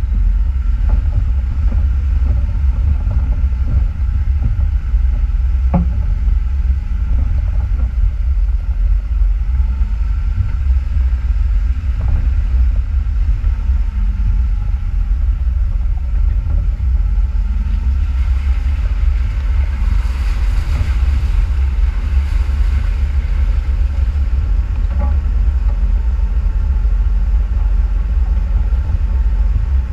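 Off-road vehicle driving, a loud steady low rumble with the engine note rising and falling faintly. A spell of louder hiss comes about two-thirds of the way through.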